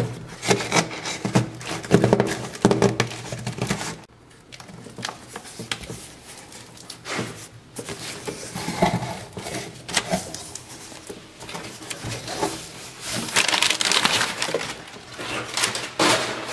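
A knife slicing through packing tape along the seam of a cardboard box, with sharp scraping and ripping loudest in the first four seconds. Then the cardboard flaps are pulled open and the crumpled brown packing paper inside crinkles and rustles, busiest near the end.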